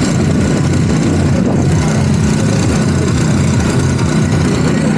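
A steady, loud, low engine hum that holds a constant pitch throughout.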